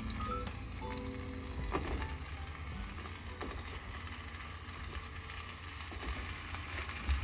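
Food sizzling steadily in a pan, with soft background music.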